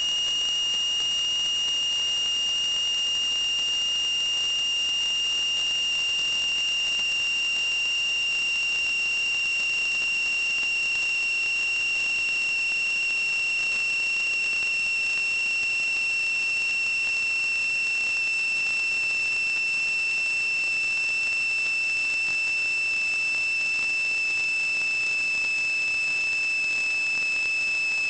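A steady high-pitched electronic whine over a constant hiss: one tone with fainter overtones that sinks very slightly in pitch. It is the electrical whine on a sewer inspection camera's recording.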